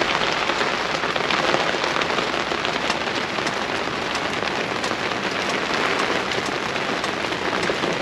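Steady rain falling on a boat's tent cover and windshield: a dense, even hiss with single drops ticking through it.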